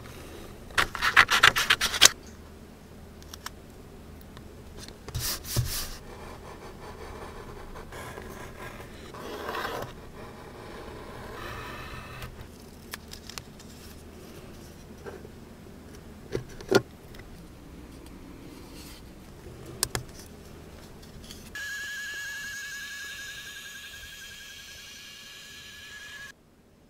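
Hand crafting at a desk: a quick run of pencil scratching on paper, then paper strips rustling and rubbing, with a few sharp taps. Near the end a steady high whine lasts about five seconds and cuts off suddenly.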